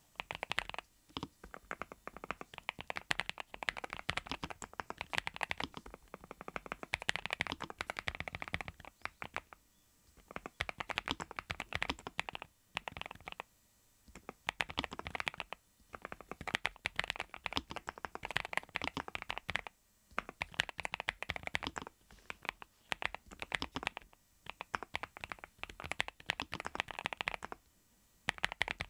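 Continuous fast typing on a NuPhy Halo75 V2 mechanical keyboard with Raspberry switches: rapid runs of soft 'kotokoto' keystroke clacks, broken by brief pauses every few seconds.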